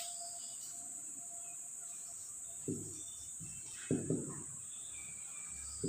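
Marker pen writing on a whiteboard: a few short faint taps and strokes, about two and a half, four and near six seconds in, over a steady high-pitched hiss.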